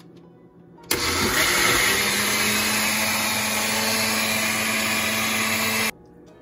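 An Oster countertop blender with a glass jar running steadily as it blends a milk-based smoothie, with a constant motor hum under the noise. It switches on suddenly about a second in and cuts off suddenly near the end.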